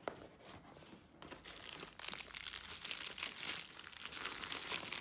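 Crumpled kraft packing paper rustling as hands dig through a cardboard box, then bubble wrap crinkling as a wrapped item is lifted out, louder from about two seconds in.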